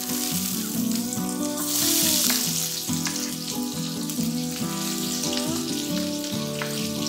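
Chopped onions sizzling as they hit hot rendered bacon fat in a stainless steel pan; the sizzle swells to its loudest about two seconds in, then settles to a steady fry. Acoustic guitar music plays underneath.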